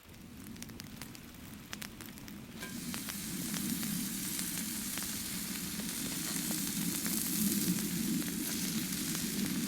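Food sizzling as it fries on a hot cooking surface; the sizzle starts about two and a half seconds in and grows louder.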